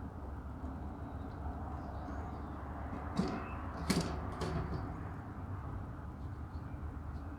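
Two sharp knocks, about three and four seconds in, over a steady low hum.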